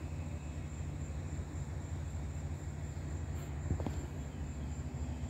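Outdoor ambience: a steady low rumble under a faint, steady high-pitched insect trill. A couple of faint knocks about three and a half seconds in as the handheld phone is moved.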